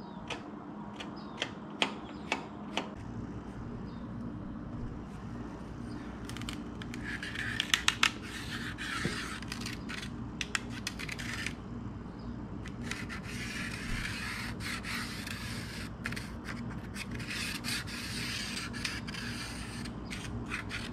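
Pencil dragged along a steel rule on a sheet of 6061 aluminum, marking a cut line: two long stretches of scratchy rubbing, with a few light clicks and taps in the first seconds. A steady low hum runs underneath.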